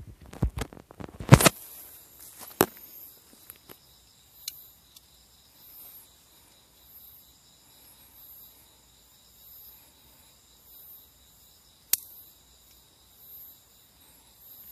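Sharp handling knocks and clicks at the start, then insects calling at night: a steady high shrill with a fainter high chirp pulsing a little more than once a second. One more sharp click comes near the end.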